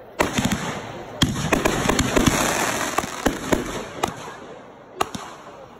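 Consumer aerial fireworks going off: a quick string of sharp bangs as shells burst overhead, with a dense crackle over the first three seconds and a last single bang about five seconds in.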